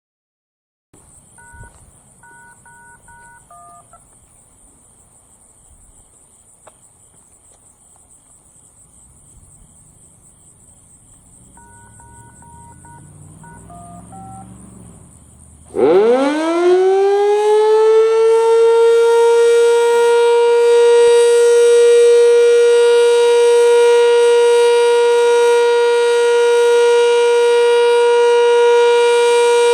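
Radio activation tones: two short sequences of paired beeps, starting about a second in and again about twelve seconds in. Then the Sentry 7V8-B outdoor warning siren winds up quickly and holds one steady tone, the start of its Alert signal.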